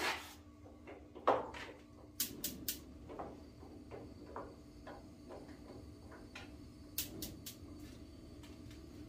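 Burners of a Blackstone propane griddle being lit: a thump about a second in, then sharp igniter clicks in two sets of three, with a low steady rush of burning gas that sets in just after the first clicks and keeps going.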